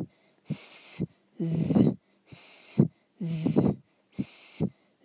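A woman's voice doing a vocal warm-up exercise. Short unvoiced hisses alternate with short pitched vocal sounds, a little under one a second.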